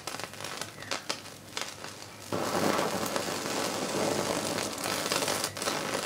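Electrical arc crackling from a high-voltage probe through an old capacitor to the earth, over a steady low electrical hum. About two seconds in, the crackle turns into a continuous dense sizzle as the capacitor is burnt out.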